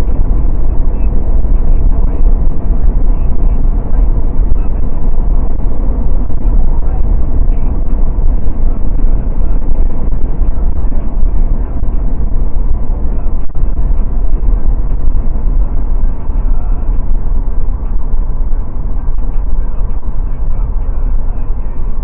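Steady road and wind noise inside a Mercedes-Benz cruising at highway speed, a deep, even drone with no distinct events.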